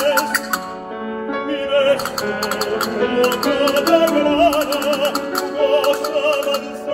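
Operatic tenor singing with a wide vibrato over piano accompaniment, with a quick, crisp clicking rhythm on top. The voice breaks off about half a second in while the piano carries on alone, then comes back in around three and a half seconds.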